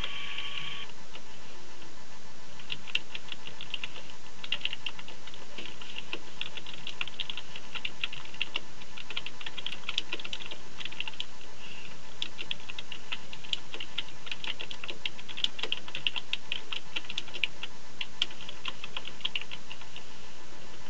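Computer keyboard typing: runs of quick key clicks, several a second, starting about two and a half seconds in, over a steady background hiss.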